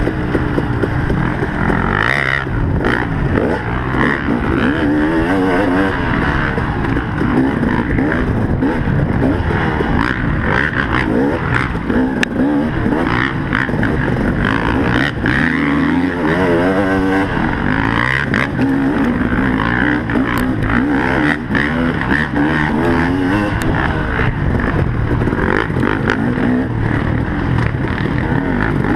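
Motocross bike engine revving hard and falling back again and again as it is ridden around the track, its pitch sweeping up and down, with scattered short knocks and clatter.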